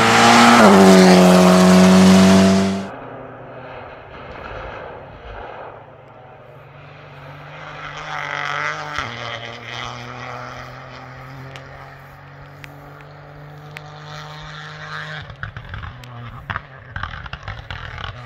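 An Alpine A110 rally car passes close, its engine loud and high-revving, until the sound cuts off suddenly about three seconds in. After that comes the fainter, steady engine note of another rally car further away, with a few sharp clicks in the later part.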